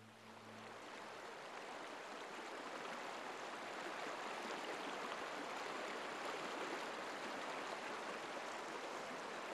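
Running water rushing steadily, a continuous hiss that fades in over the first couple of seconds.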